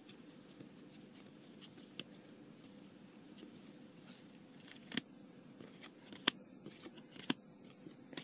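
Trading cards being handled and sorted: irregular sharp clicks and snaps of card edges against each other, with light rustling, a few louder snaps in the second half.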